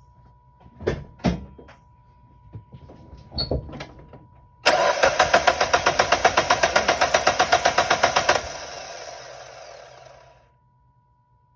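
Mazda Miata four-cylinder engine being cranked by the starter for about four seconds, with an even beat of compression strokes; the sound then trails off and stops. This is a start attempt during an intermittent no-start fault.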